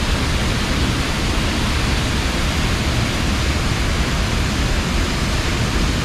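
Waterfall heard up close, pouring into its plunge pool: a loud, steady rush of falling water with no let-up.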